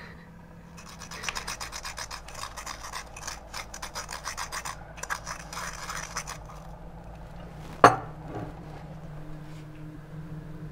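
A spoon digging and scraping in a small sugar bowl of granulated sugar, with quick gritty rasping strokes for about five seconds. A single sharp clink follows about eight seconds in.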